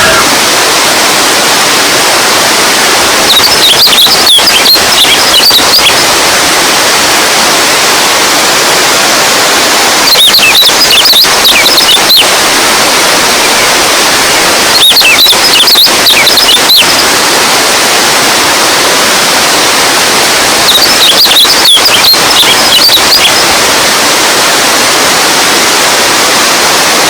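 Loud, steady rush of running water, a stream or cascade. Four short spells of high, flickering chirps rise over it, about every five or six seconds.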